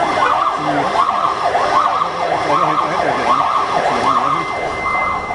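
Several ambulance sirens wail together, overlapping, each rising and falling quickly, with men's voices faint underneath.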